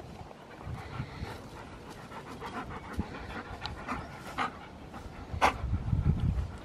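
Huskies panting close up while a handheld spray bottle squirts water at them, with a couple of short hissing spurts in the second half.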